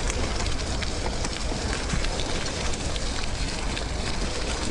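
Bicycle rolling along a gravel path: tyres crunching with a dense crackle over a steady low rush of wind on the microphone.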